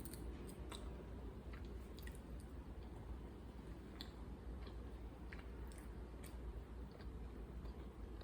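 A person chewing food, with faint, wet mouth clicks scattered throughout over a low steady hum.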